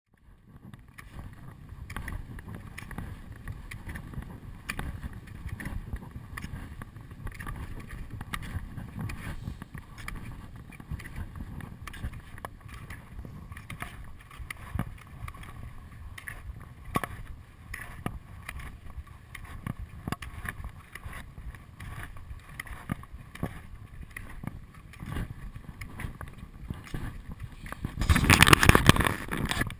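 Wind rushing over an action camera's microphone during ski touring on snow, with scattered clicks and scrapes from the skis and poles. A louder burst of wind noise comes near the end.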